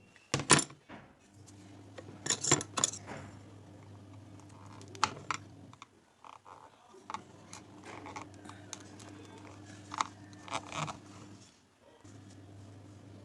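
Tools and metal parts clinking and knocking in scattered sharp strikes, loudest about half a second in and around two and a half seconds in, over a steady low hum that drops out twice.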